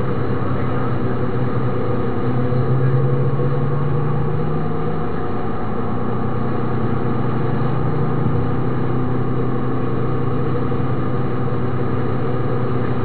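MINI Cooper S engine running at speed on a race track, a steady engine drone whose pitch dips slightly about five seconds in and then holds.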